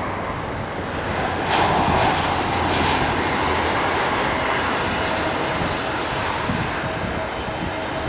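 Airbus A320neo jet engines as the airliner comes in to land: a steady rushing roar that grows louder about a second and a half in, with a faint high whine on top.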